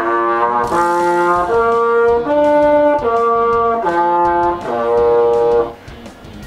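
Plastic trombone with a metal mouthpiece, played by a beginner: seven held notes stepping up in pitch and back down again, like a short scale up and down. The notes stop about a second before the end.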